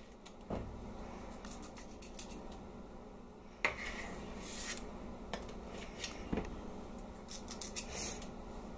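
Squeeze-handle metal cookie scoop scraping dough in a stainless steel mixing bowl, with clicks and knocks from its spring lever and from metal tapping the bowl. The sharpest knock comes about three and a half seconds in, and a run of quick clicks near the end.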